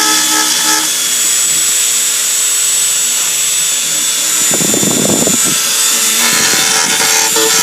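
Electric power sander running against the caboose's wood, a steady high hiss with a motor whine, turning rougher for about a second around five seconds in.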